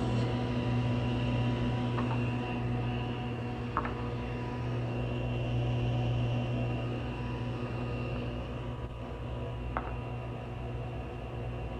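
Stationary woodworking machine running steadily with a low electric hum and no cut under way, with three faint ticks.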